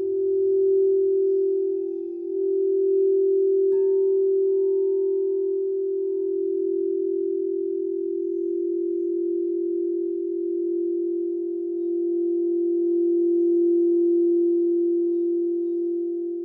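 Singing bowl sounding one sustained low tone that swells and eases slowly. About four seconds in, a light tap adds a higher ring above it.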